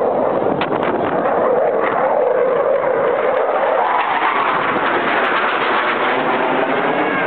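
Jet noise from two Blue Angels F/A-18 Hornets flying overhead: a loud, steady rush, with a tone in it that climbs in pitch about halfway through.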